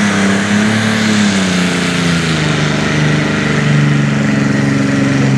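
Super stock pulling tractor's turbocharged diesel engine running at the starting line, its pitch sagging slowly lower over several seconds.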